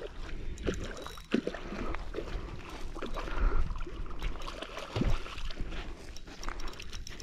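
Water splashing in irregular bursts as a hooked rainbow trout thrashes at the surface close to the bank, over a low steady rumble.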